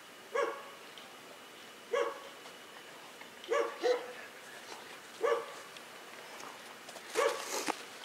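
A dog barking repeatedly, in single short barks every second or two, with a quick double bark twice. The siren is not sounding.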